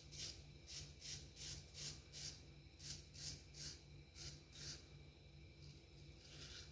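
Palmera straight razor scraping through lathered stubble in short, quick strokes, about three a second, faint and crisp. The strokes stop about two-thirds of the way through, with one more near the end.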